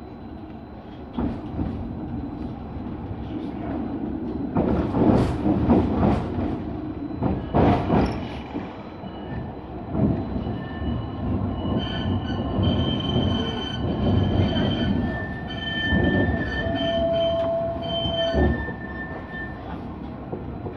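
A Tramlink tram running on its rails, heard from on board, with a run of loud clattering knocks about four to eight seconds in. Then comes a squeal of the wheels on a curve, a high ringing of several steady tones lasting about eight seconds.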